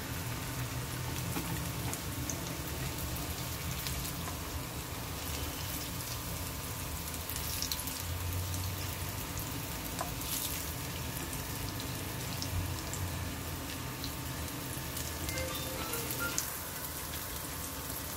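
Oil sizzling steadily as mutton shami kebab patties and koftas shallow-fry in a nonstick frying pan. A few light clicks come from a wooden spatula turning them.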